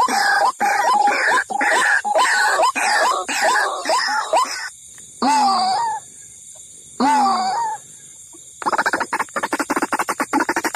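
White-breasted waterhen (ruak-ruak) calls played as a trapping lure: a run of repeated calls about two a second, then two separate longer calls, then a fast stuttering series of pulses from about nine seconds in.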